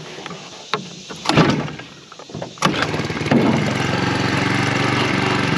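Small 4 hp four-stroke outboard motor being pull-started cold on full choke: a first pull of the recoil starter rope a little over a second in fails to start it, and on the second pull, about two and a half seconds in, the engine catches and then runs steadily.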